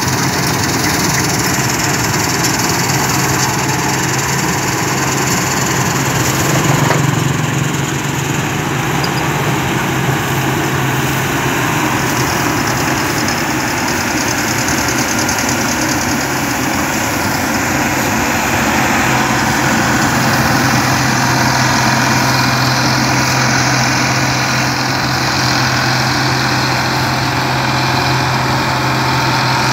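New Holland 8070 combine harvester running steadily while it cuts standing crop: a constant engine drone with a strong low hum, and a brief swell about seven seconds in.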